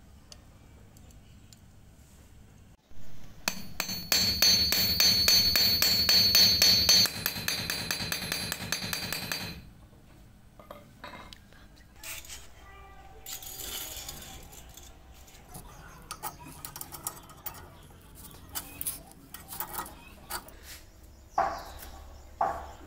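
Metal parts of a restored scissor car jack being handled: a loud run of rapid, evenly spaced metallic clicking for about six seconds, then scattered metal clinks and taps.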